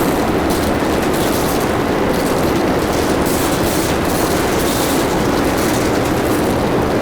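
Loud, steady rumbling drone with a rough hiss over it, unchanging in level.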